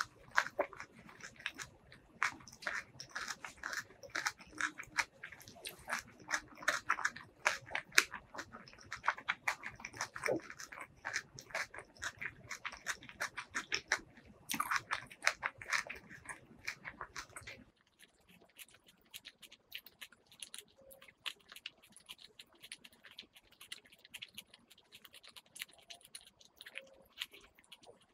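Close-miked chewing of a mouthful of food with the lips closed, a dense run of wet mouth clicks and smacks. About two-thirds of the way through, the sound drops suddenly to quieter, sparser clicks.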